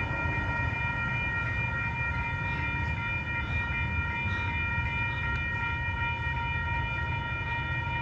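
Freight train of coil cars creeping forward at very low speed: a low steady rumble with a constant high whine over it and a few faint clicks.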